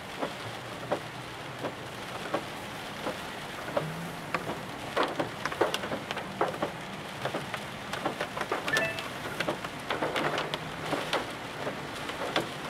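Raindrops tapping irregularly on a car's roof and windshield, heard from inside the cabin over the steady hum of the car moving slowly on a wet road.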